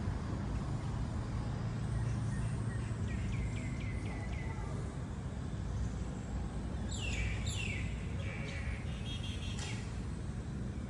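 Small songbirds chirping: a quick run of short falling notes about three seconds in, then two loud downward-sweeping calls about seven seconds in. A steady low rumble runs underneath.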